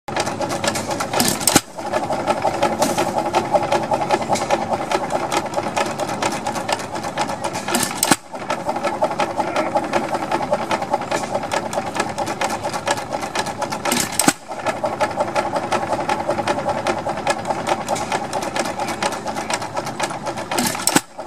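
Associated antique stationary gas engine with low-tension ignition running, a fast, steady clatter of clicks from its igniter and valve gear, broken by short gaps about every six seconds.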